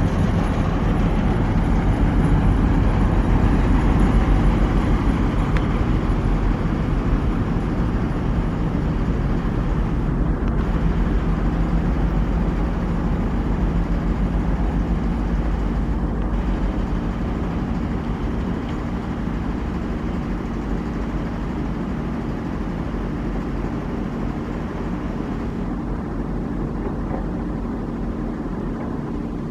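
A 2M62 twin-section diesel locomotive's two-stroke diesel engines run with a steady low drone as it moves away along the track. The sound fades slowly.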